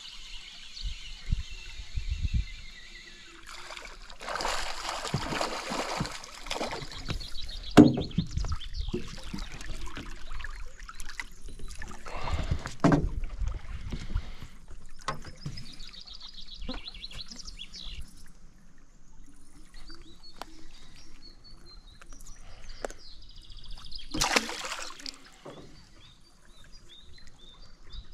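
Irregular knocks and bumps on an aluminium boat, with water splashing; one sharp knock comes about eight seconds in and a louder splash-like burst near the end. Birds chirp in the second half.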